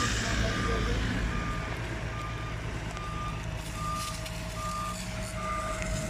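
A fire truck's reversing alarm beeping steadily, a short beep about every 0.8 seconds, over the low steady hum of its running engine.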